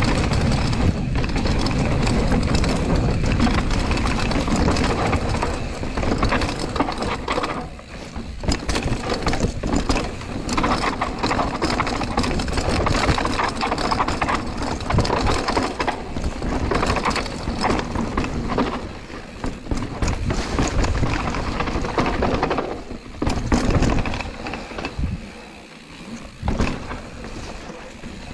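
Mountain bike descending a rough trail of dirt and stone slabs: tyres rolling and the bike rattling, with a constant rumble and many sharp knocks. The noise eases briefly about eight seconds in and again near the end.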